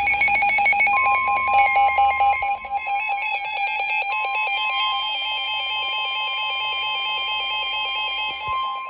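Emergency Alert System signal between weather warnings: rapidly chopping digital data tones, joined about a second in by a steady single-pitched alert tone that holds, with a brief break, until near the end.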